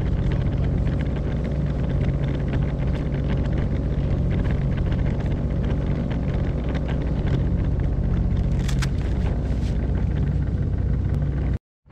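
Jet ski engine running steadily at low idle-speed revs as the craft moves slowly through the water. The sound cuts out for a moment near the end.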